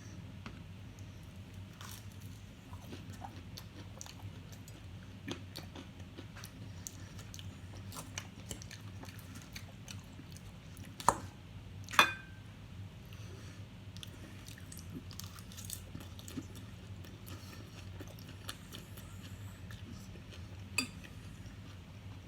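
A person chewing and crunching food, with scattered small clicks over a low steady hum. Two sharp, louder clicks come about a second apart near the middle, and another comes near the end.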